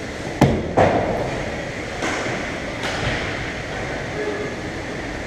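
Two sharp bangs about a third of a second apart, about half a second in, with a fainter knock later, over the steady rumbling noise of an ice hockey game in the rink.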